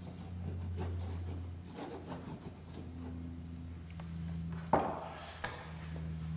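Steady low room hum with faint scratchy rubbing, broken by a sharp knock a little under five seconds in and a smaller click just after.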